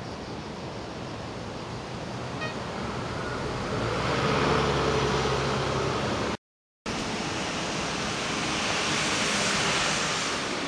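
Outdoor traffic noise: a passing vehicle swells to its loudest about four seconds in, and after a short break a steady hiss of traffic continues.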